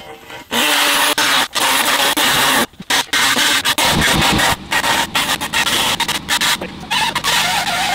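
Handheld air die grinder grinding an aluminium panel, running loud and cutting out briefly many times. About seven seconds in, a wavering whine joins it.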